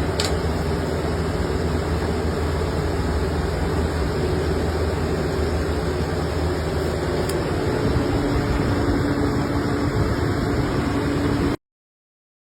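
U-drilling machine with gearhead and high-pressure coolant system running, a steady mechanical drone. A steady higher tone joins about eight seconds in, and all sound cuts off abruptly shortly before the end.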